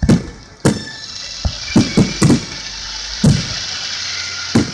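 Aerial firework shells booming in an uneven volley, about eight sharp bangs, with a steady hiss between them from about a second in.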